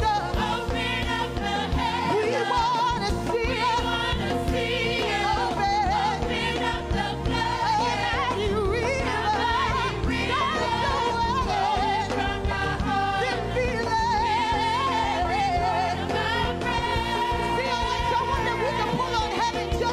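A women's gospel vocal group singing a worship song into microphones, voices held and wavering in pitch over continuous instrumental backing.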